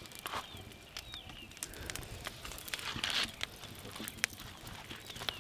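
Outdoor ambience with scattered sharp clicks and ticks, and a few short bird chirps.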